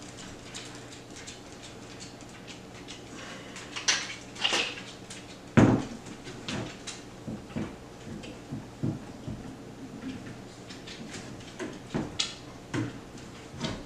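Crossbow parts knocking, clicking and scraping against each other and the tabletop as the riser is worked onto the rail. There is one sharp knock about five and a half seconds in.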